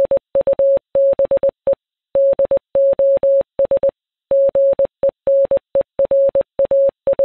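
Morse code beeping: a single steady tone switched on and off in a mix of short and long beeps, grouped with gaps between them.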